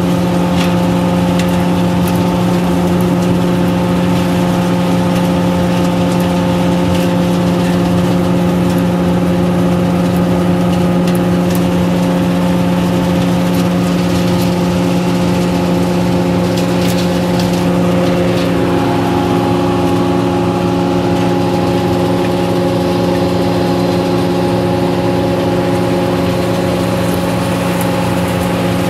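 Olive harvester running steadily: a constant, loud engine hum with several steady tones that shift slightly in pitch about two-thirds of the way through, with a few light clicks over it.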